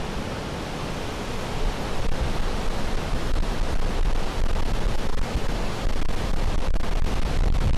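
Fast mountain river rushing, a steady dense noise of white water that grows louder about a second and a half in.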